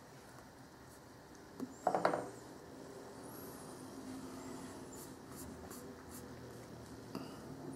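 Faint rubbing and tapping of a finger on a laptop touchpad, with one short, sharper tap or click about two seconds in, over a faint steady hum.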